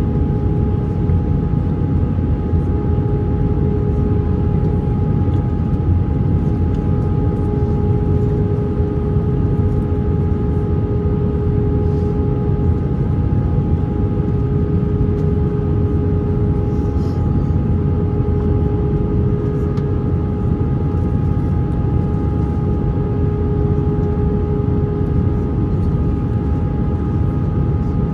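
Airbus A321 cabin noise in flight: a steady rushing drone of airflow and engines with a constant hum tone over it, unchanging throughout.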